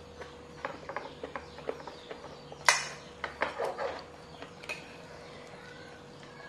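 A spoon clinking and scraping on a plate during a meal: a string of small, irregular clicks, with one sharper clink a little under three seconds in.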